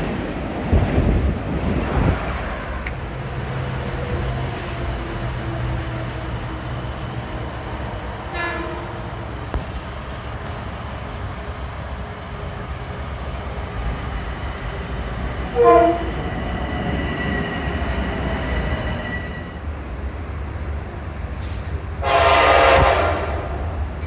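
Metro-North commuter trains sounding their horns over the steady rumble of trains in the station: a faint short toot about eight seconds in, a short sharp blast near sixteen seconds, and a longer loud blast about twenty-two seconds in. Wind buffets the microphone near the start.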